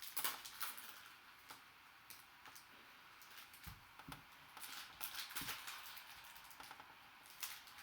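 Faint rustling and light clicks of trading cards being handled, with a couple of soft thumps about halfway through.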